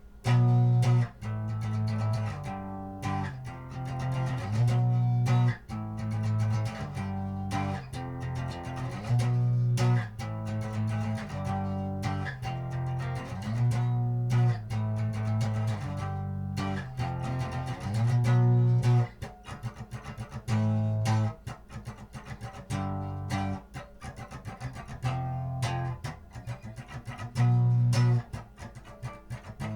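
Guitar-based instrumental music with a bass line, notes and chords changing every half second or so.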